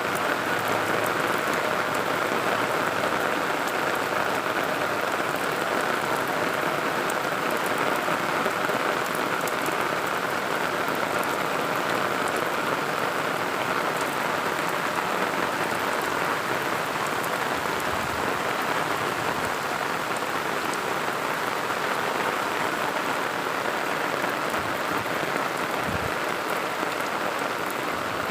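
Heavy rain falling steadily, a dense even hiss of drops hitting the ground with fine pattering ticks.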